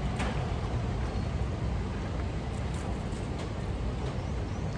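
Low, steady outdoor street rumble, with a faint click just after the start.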